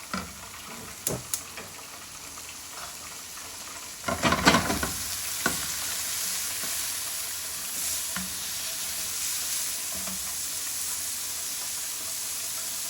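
Celery, garlic and dried chili peppers sizzling in hot oil as they are stir-fried, with sharp clicks of the stirring utensil on the pan about a second in and a loud burst of scraping and clatter about four seconds in, after which the sizzle is louder.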